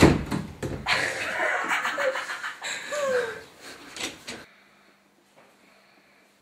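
Teenagers giggling and breathing hard under their breath, with a knock at the start. It cuts off abruptly about four and a half seconds in, leaving near silence.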